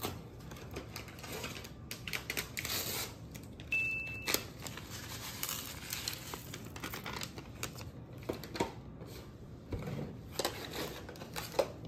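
Irregular clicks, scrapes and crinkles of food being mixed in a disposable aluminium foil pan, with a brief high beep about four seconds in.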